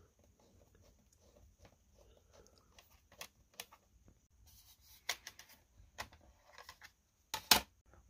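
Small Phillips screwdriver backing screws out of a Lenovo ThinkPad's plastic underside access cover: faint scattered ticks and clicks, growing sharper from about five seconds in. A couple of louder plastic clicks near the end as the cover is pried off.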